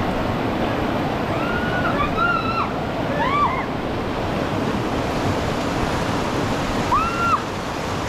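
Steady rush of river water, with a few short high calls rising and falling over it about two to three seconds in and again near the end.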